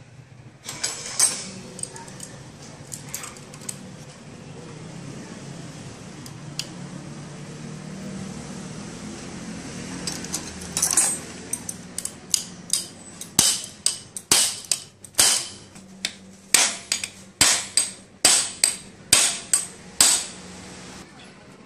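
Hammer strikes on metal during the replacement of an air-conditioner fan motor's bearing. A few scattered knocks come first, then about halfway in a run of about a dozen sharp blows, roughly two a second.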